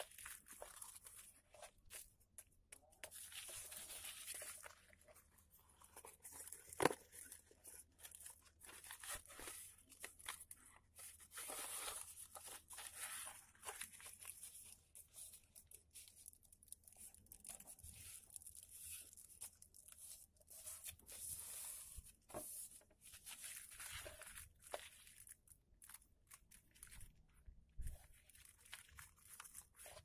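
Faint rustling and crinkling of a creased sheet of origami paper as hands fold it and press the creases flat, with one sharp click about seven seconds in.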